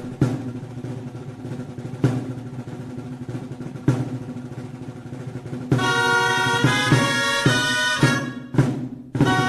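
Music: slow single drum strokes about every two seconds over a held low note, then a bright, busy melody comes in about six seconds in, briefly dropping out just before the end.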